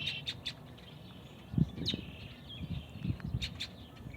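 Several wild birds chirping and trilling in short, high calls. Low, muffled rumbling thumps come about a second and a half in and again around three seconds, louder than the birds.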